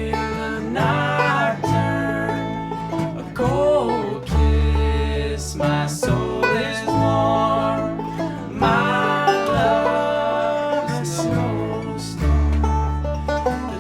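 Bluegrass band playing with banjo, fiddle, acoustic guitar and upright bass.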